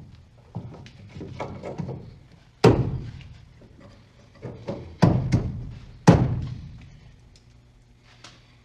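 Heavy knocks of something being struck during the steering and suspension work: a few smaller knocks, then three loud blows, each ringing on for about a second.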